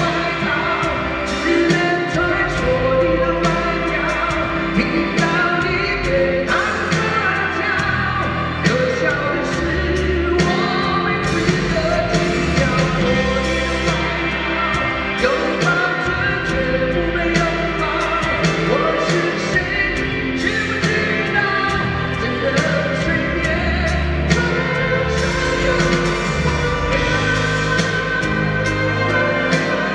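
Male pop-rock vocalist singing live into a handheld microphone over loud amplified band accompaniment with a steady drum beat.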